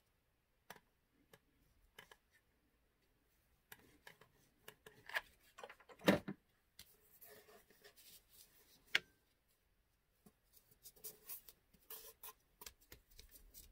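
Light handling sounds of fabric being pressed and folded over a cardboard base: soft rustles and scattered small clicks and taps, with a louder thump about six seconds in and a sharp click about nine seconds in.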